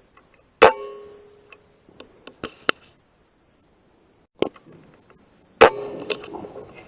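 Two air rifle shots about five seconds apart, each a sharp crack followed by a short ringing tone. Lighter mechanical clicks come between them.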